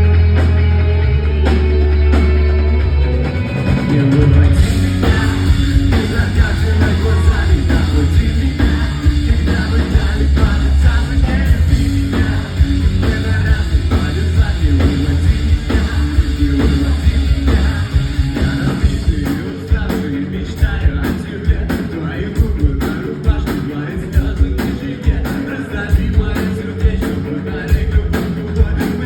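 Live rock band playing a song with singing, guitar, bass and drums. The heavy bass drops out about two-thirds of the way through, leaving sharper regular drum hits.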